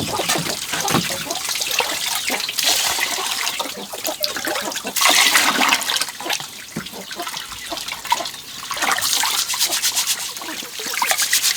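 Water splashing and trickling in irregular bursts, with a louder run of splashing about five seconds in.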